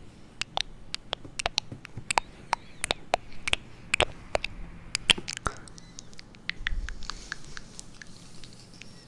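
Close-miked ASMR tapping: crisp, irregular taps and clicks, several a second. They thin out after about five seconds, and a soft, high scratching rustle follows near the end.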